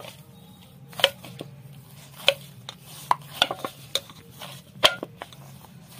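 Parotha dough being kneaded by hand, with a series of sharp, irregular knocks and clinks against its vessel.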